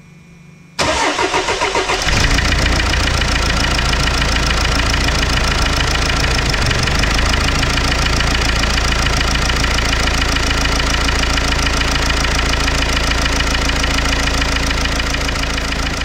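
Mercedes-Benz Sprinter Classic's OM611 four-cylinder diesel cranked by the starter for about a second, catching and then idling steadily. The engine has a knock the mechanic could not trace and suspects lies low in the engine, such as a piston pin or a bearing shell.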